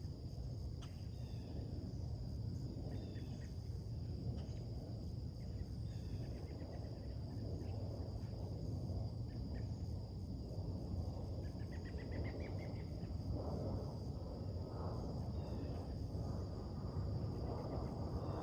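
Summer morning ambience: a steady high insect drone with scattered short bird chirps, including a quick rising trill about twelve seconds in, over a low steady background rumble that grows a little fuller near the end.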